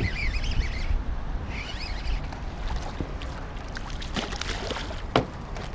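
Water splashing and lapping at the side of a small boat, with birds calling a few times in the first two seconds and a few light clicks near the end.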